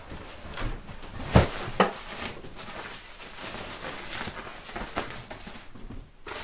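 A backpack being handled and packed: rustling and small knocks, with two sharp knocks close together about a second and a half in.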